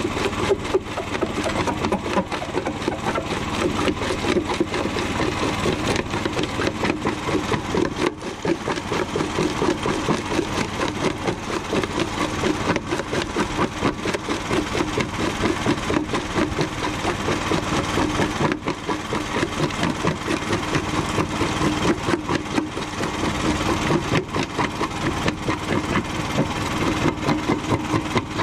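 Homemade jaw crusher chewing up a chunk of concrete, its small engine running steadily under the rapid, rhythmic crunching and grinding of the jaws as the block is broken down into gravel.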